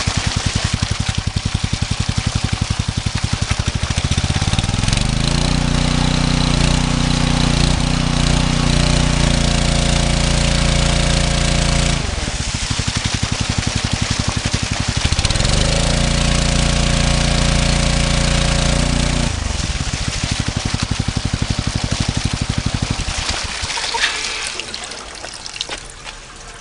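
Koshin SE-80EX engine-driven water pump running. Its small petrol engine pulses at a low speed, then revs up to a steady high speed for several seconds. It drops back, revs up a second time, settles to a low speed again, and dies away near the end. Water gushes from the pump's outlet while it runs.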